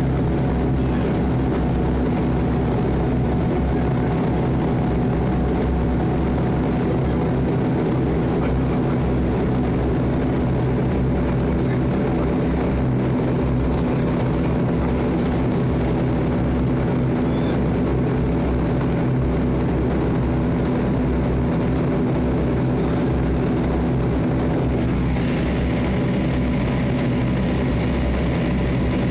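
Cabin noise of a Bombardier Dash 8-Q400 on the ground: its Pratt & Whitney PW150A turboprops and six-blade propellers running in a steady drone with several held hum tones over a low rumble, with tyre and airframe rumble beneath. The sound gets a little brighter near the end.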